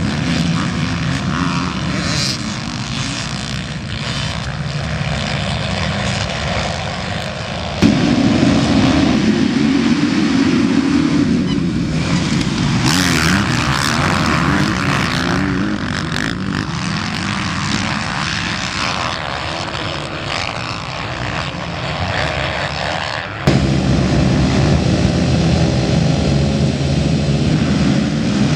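Motocross and enduro motorcycle engines running and revving on a dirt circuit, the sound changing abruptly about eight seconds in and again about two-thirds through.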